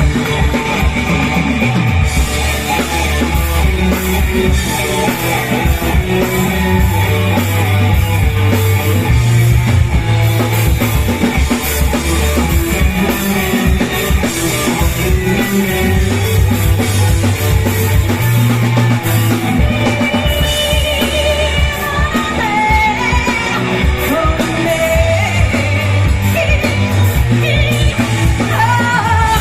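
Live rock band playing loud, with a drum kit, a stepping bass line and a singer. The cymbals fill in about two seconds in, and the singing voice stands out more clearly in the later part.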